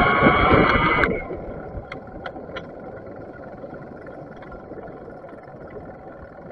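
Bafang BBS mid-drive e-bike motor whining, the whine rising in pitch and then cutting off suddenly about a second in. After that, steady wind and road noise with a few faint clicks.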